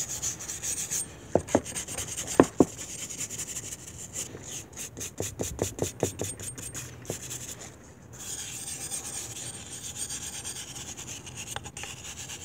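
Small hand wire brush scrubbing rust off a wet, vinegar-soaked steel axe head (a vintage Mann Edge Tool single-bit boy's axe) in quick scratchy strokes, with a few sharp knocks in the first three seconds. The rust, loosened by the vinegar bath, is coming off easily.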